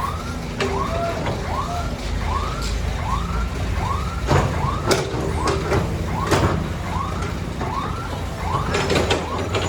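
Heavy diesel machinery engine running steadily, with scattered knocks and clanks. Over it a short rising-and-falling chirp repeats about every 0.7 seconds, like a warning alarm.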